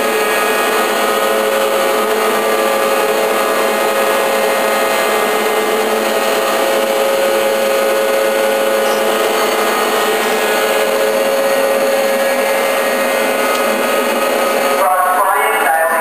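Steady mechanical hum and whine of a powered-up Makino A-77 CNC horizontal machining center, holding several steady tones at an even level. Music comes in about a second before the end.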